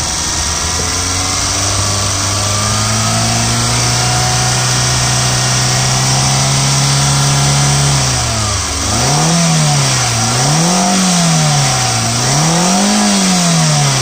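Hyundai i10 engine idling, its pitch creeping slowly up, then revved three times in a row in the second half, each rev rising and falling back.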